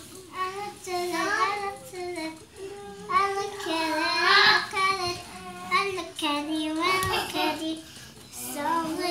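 A young child singing a tune in short phrases, holding and bending the notes, with brief pauses between phrases.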